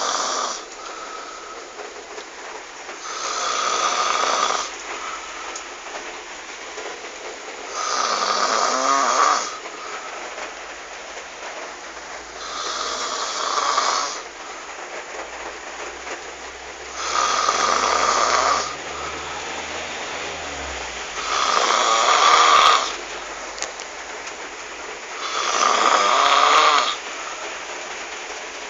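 A sleeping person snoring: one snore of about a second and a half roughly every four seconds, in a steady rhythm, over a constant background hiss between snores.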